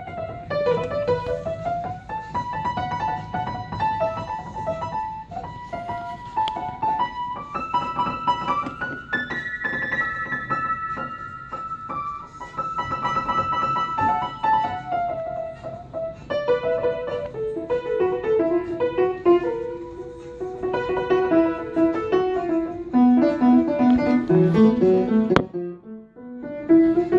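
Piano playing a melody over lower chords, with a brief break about two seconds before the end.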